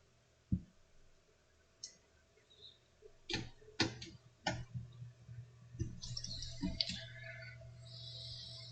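Hands working inside a desktop PC case: a soft knock, then a run of sharp clicks and light knocks from handled parts, with some rustling near the end.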